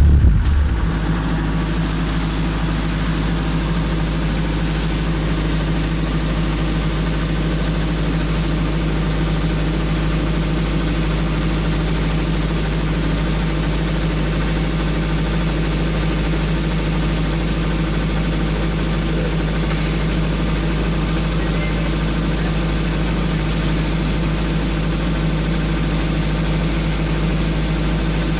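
An engine idling steadily with a constant low hum, unchanging throughout.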